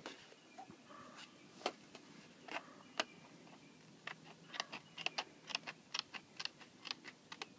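Hand tin snips cutting thin sheet steel: sharp metallic clicks as the blades bite and close, a few spaced ones at first, then several a second from about four seconds in.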